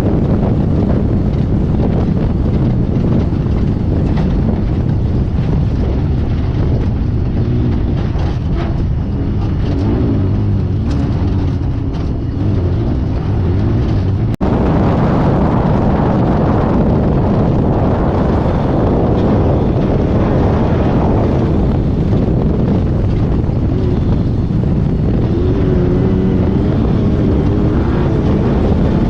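Off-road race car running hard over rough ground, with loud engine noise, rumble and wind on the microphone inside the car; the engine pitch rises and falls in places. The sound breaks off for an instant about halfway through.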